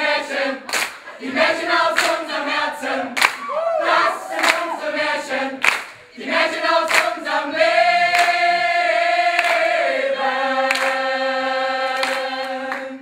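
A group of mixed voices singing together, with sharp hits in time with the song during the first half. The song then settles into long held notes that end together just before the close.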